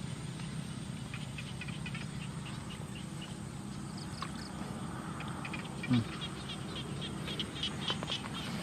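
Crickets chirping in short, repeated pulses over a steady low background hum. A brief low sound that falls in pitch comes about six seconds in.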